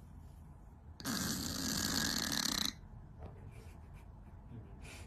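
A sleeping cat snoring like a person: one long snore about a second in, lasting close to two seconds.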